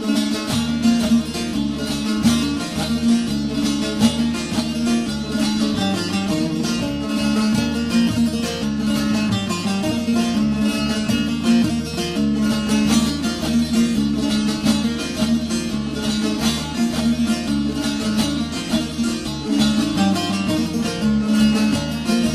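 Instrumental Turkish folk music: a bağlama (long-necked saz) playing a fast plucked melody over a steady low drone, the introduction before the sung verses of an Alevi deyiş.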